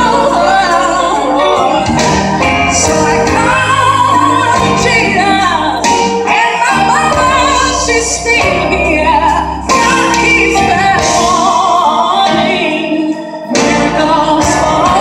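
Gospel praise song with a female voice singing over a band of bass, keyboards and drums, heard in a large hall.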